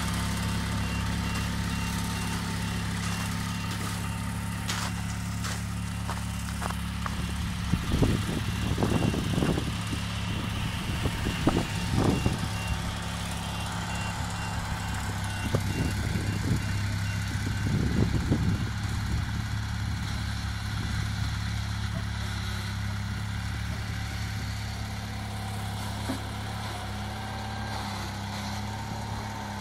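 Bolens garden tractor engine running steadily under a front loader, with two spells of clattering knocks from the loader working.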